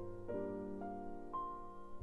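Soft background piano music: a slow melody of single notes, about one every half second, rising over held lower chords.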